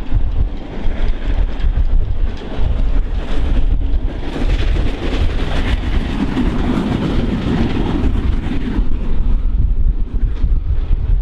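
LMS Royal Scot Class three-cylinder 4-6-0 steam locomotive 46115 Scots Guardsman hauling a train of coaches past, its running and wheel noise building to a peak about six to eight seconds in, then easing. Heavy wind buffets the microphone throughout.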